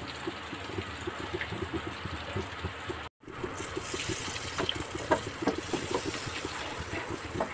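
Melted butter sizzling and crackling on a hot flat tawa as mayonnaise is stirred into it with a spatula. The sizzle cuts out briefly about three seconds in.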